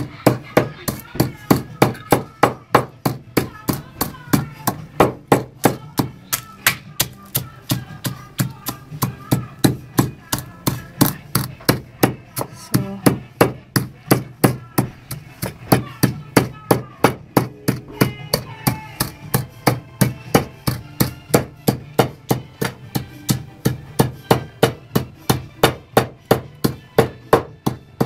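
Whole spices (ajwain seeds, coriander seeds and dried red pepper) being pounded with a pestle in a mortar: steady strikes about two to three a second, crushing them coarsely.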